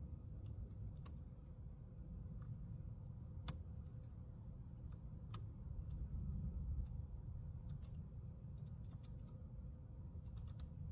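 Small, irregular metallic clicks and ticks of a Lishi SC1 pick working the pin stack of a Schlage-keyway door lock under light tension, with one sharper click about three and a half seconds in. A low steady rumble runs underneath.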